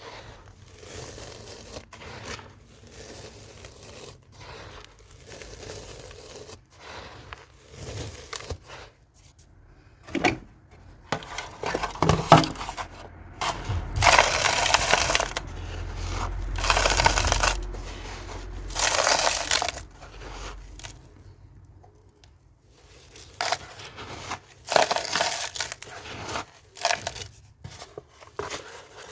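Dry cement chunks being crumbled and crushed by hand, an uneven crunching and crackling of grit. It starts soft, then comes in louder stretches in the middle and again near the end.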